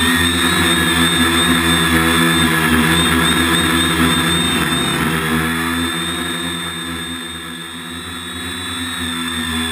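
Waterproof Aquacopter quadcopter's electric motors and propellers running steadily, a hum with a higher wavering whine, heard from the camera on board as it flies low. The sound eases off briefly about three-quarters of the way through, then builds again.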